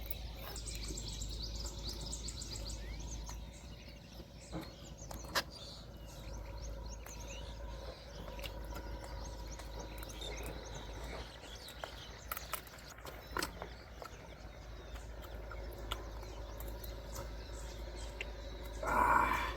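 Outdoor rural ambience: birds chirping over a steady low rumble, with scattered clicks. A louder brief sound comes near the end.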